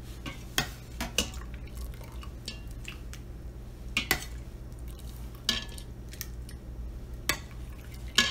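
A spoon clinking and scraping against the Instant Pot's inner pot and a bowl as the cooked porridge is scooped out: about eight separate knocks, some in quick pairs, over a steady low hum.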